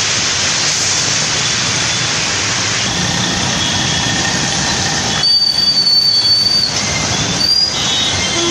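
Traffic wading through a flooded road: a steady rushing wash of water thrown up by tyres, with a city bus pushing through the water. A thin high squeal rises over the wash for about a second and a half a little past the middle, and comes again briefly near the end.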